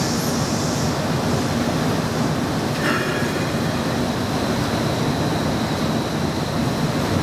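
Cabin running noise of a South Lake Union streetcar under way: a steady rumble of wheels on rail with a faint steady high whine, and one short higher sound about three seconds in.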